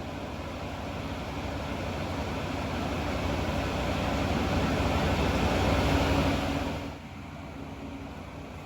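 A vehicle engine running steadily. It grows louder over about six seconds, then drops off abruptly about seven seconds in.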